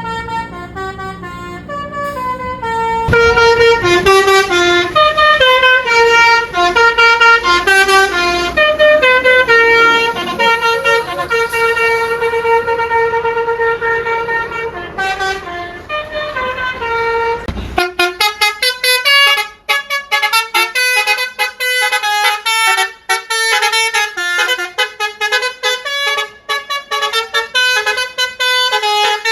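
Basuri telolet horn on a tour bus playing a melody of stepped, held notes over a low rumble. A little past halfway the rumble cuts off suddenly and the horn plays quick, choppy runs of notes.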